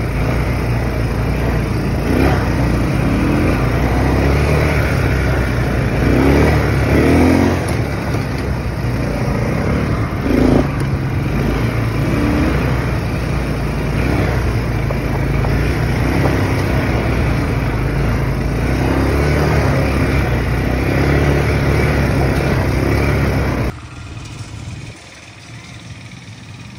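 ATV (quad bike) engine running while being ridden, its pitch rising and falling with the throttle. About three seconds before the end the sound cuts off abruptly to a much quieter background.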